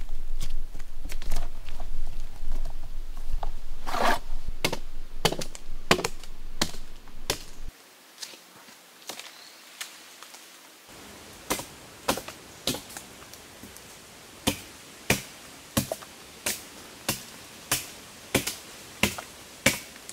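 Sharp knocks and taps against a chicle-tree trunk from a tapper climbing with a rope and working the bark. They are irregular over a low rumble at first, then, after a short hush about eight seconds in, they come evenly, somewhat under two a second.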